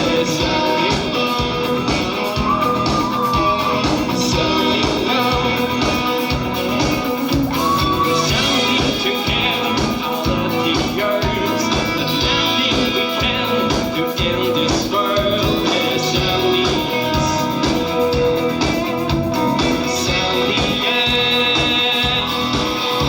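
Rock band playing live: electric guitar over drums with a steady beat.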